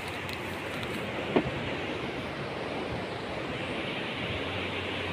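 Steady wash of breaking surf and wind on the beach, with one short sharp tap about a second and a half in.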